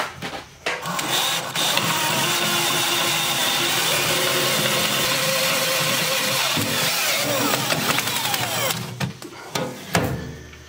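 DeWalt 20V cordless drill with a half-inch twist bit drilling through the steel wall of a tractor loader bucket, enlarging a smaller pilot hole. It runs steadily for about seven seconds and stops near the end, with a few clicks before it starts and a knock after it stops.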